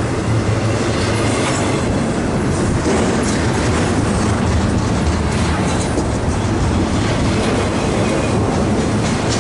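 Double-stack container freight cars rolling past close by: a steady, loud rumble and clatter of steel wheels on the rails.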